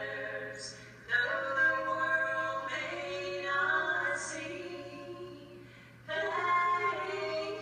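Two women singing a gospel song as a duet into microphones, replayed through a computer's speaker and re-recorded. The phrases break off briefly about a second in and again near six seconds.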